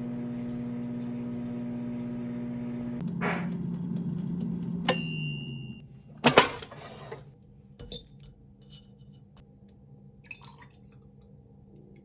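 A kitchen appliance hums steadily. A single bell ding comes about five seconds in and the hum winds down, followed by a sharp clack and a few light clinks of dishes.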